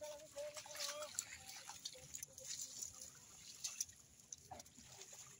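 Faint splashing and sloshing of hands and knees crawling through shallow muddy water, in small scattered splashes. A faint distant call is heard for about the first second.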